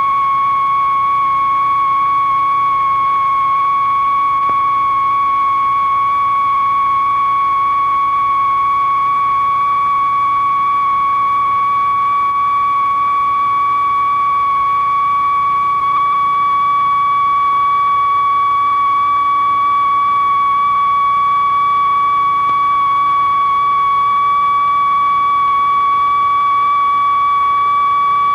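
Electronic sine-wave tone held steady and high, rising in pitch almost too slowly to notice, over a faint hiss: the long, slow rising glissando that makes up this experimental film's soundtrack.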